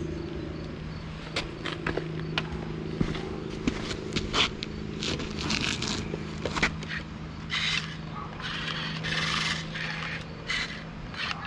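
Small electric drive motors and plastic gearing of a Hunia 1567 RC wheel loader humming steadily as it moves, stopping near the end. Over it, gritty scraping and sharp clicks of dirt and gravel under its wheels and bucket.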